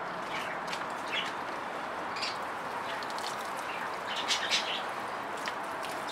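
Water pouring from a watering can's rose onto potted plants and soil, a steady spattering hiss, with short bird chirps over it, loudest about four seconds in.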